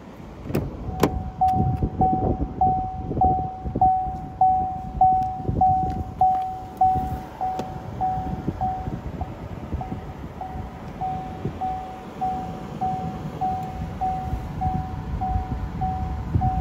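Chevrolet Bolt EV's cabin warning chime, a single tone repeating about every 0.6 s, starting about a second in and fading briefly midway, with low rumbling handling noise underneath.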